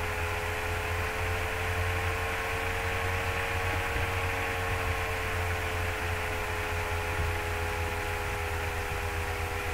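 Steady electrical hum and hiss with no speech: a low mains-type hum under several faint, steady whining tones, unchanging throughout.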